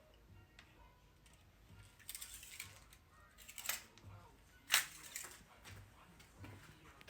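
Metal dipstick being drawn out of its tube and pushed back in: a short scrape about two seconds in, then a few sharp clicks, the loudest just before five seconds, as the oil level is checked after the engine's first run on fresh oil.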